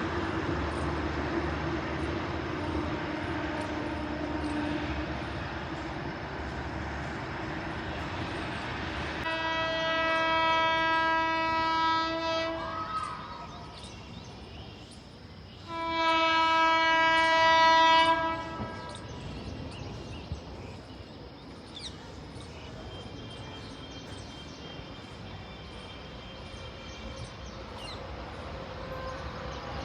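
Indian Railways locomotive horn sounding two long blasts, each about three seconds, a few seconds apart; the second is the louder. A train rumbles steadily underneath.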